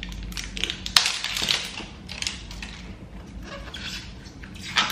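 Butter slime being squished and poked by hand, giving a run of short crackly squishing noises, with a sharper click about a second in.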